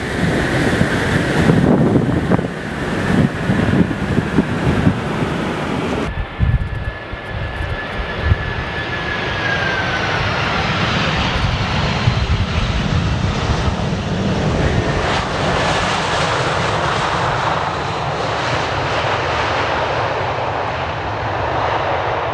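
Jet engines of a large four-engine freighter on the runway. About six seconds in, after a sharp cut, an Airbus A320-family airliner's twin turbofans run at takeoff power: a high fan whine falls in pitch as it passes, over a steady engine roar.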